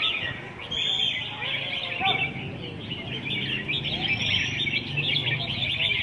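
Many caged red-whiskered bulbuls singing at once: a dense, overlapping chatter of chirps and short whistled phrases. It thins out briefly about a second in, then thickens again after about three and a half seconds.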